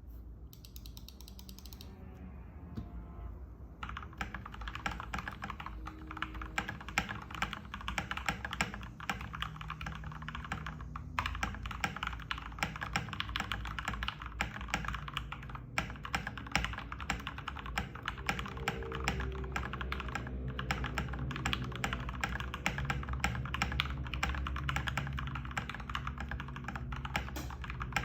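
Typing on a TM680 mechanical keyboard with Gateron Milky Yellow linear switches: a fast, continuous clatter of keystrokes that begins about four seconds in.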